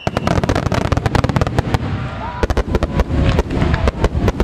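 Finale barrage of aerial fireworks: dozens of shells bursting in rapid succession, loud cracks and booms overlapping into a near-continuous rumble that breaks out suddenly at the start.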